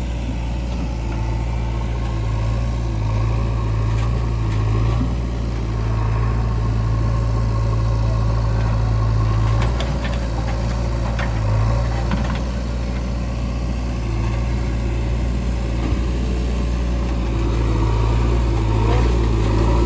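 Heavy diesel machinery running steadily: a backhoe loader and a tractor working at mud loading, with a few faint knocks about ten to twelve seconds in.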